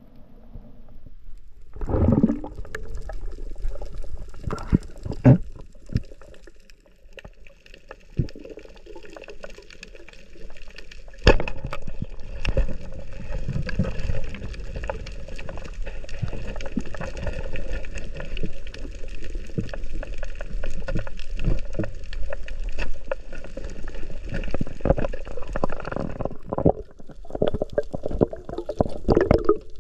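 Water gurgling and sloshing, with a few sharp knocks; the sound turns denser and steadier after about eleven seconds.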